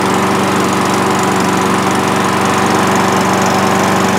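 Self-propelled walk-behind gasoline lawn mower's small single-cylinder engine running steadily at an even speed, just brought back to running order after repairs, with some fine tuning still to do.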